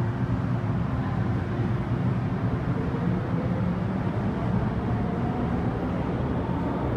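MTR M-Train electric train pulling out of an underground station: a steady rumble of wheels on track, with a motor whine that rises slowly in pitch as it picks up speed.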